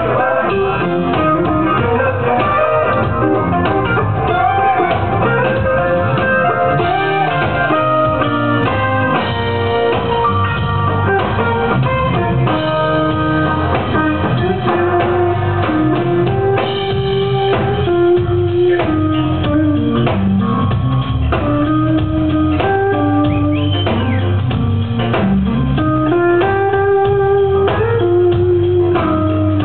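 Live band playing an instrumental section of a reggae song: an electric guitar lead with bent notes over bass guitar, drum kit and keyboards.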